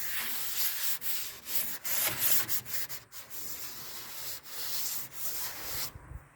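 Sandpaper worked by hand over the old paint on a 1978 Ford pickup's body, a run of scratchy back-and-forth strokes that stops near the end.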